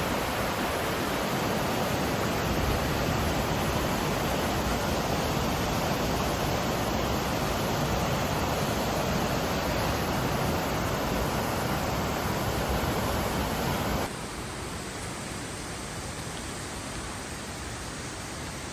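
Mountain river water rushing over rocks, a steady wash of noise. About fourteen seconds in it drops suddenly to a quieter, softer rush.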